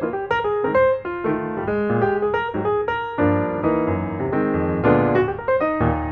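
Piano music: a quick, light run of notes, filling out into fuller sustained chords about three seconds in.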